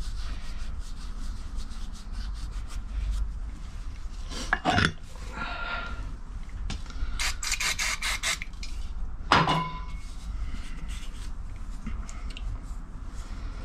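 A cloth rag rubbing and wiping a metal fitting and a small spoked metal hand wheel, with two sharp metallic knocks about a third and two-thirds of the way through and a quick clatter of clicks between them as the wheel is handled.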